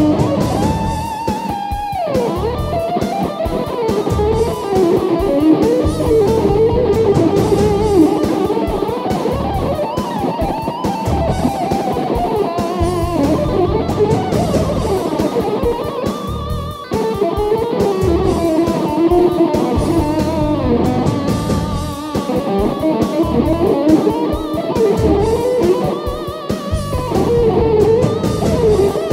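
Electric guitar soloing in a blues-rock style: a continuous improvised lead line with bent notes sliding up and down in pitch.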